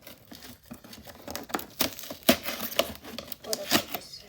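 Shipping packaging being handled and pulled open by hand: irregular crinkling and tearing with sharp crackles, the loudest about two seconds in.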